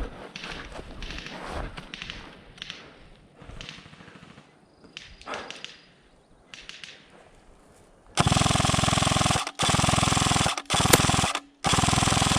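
Airsoft rifle firing full-auto close to the microphone, a loud rapid rattle in four bursts of about a second each in quick succession, starting about two-thirds of the way through. Before that, quieter rustling and knocks.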